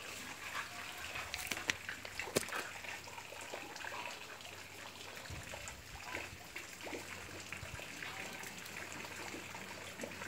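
Water steadily trickling and splashing into a small garden pond from a jet or fountain, with a few faint ticks about two seconds in.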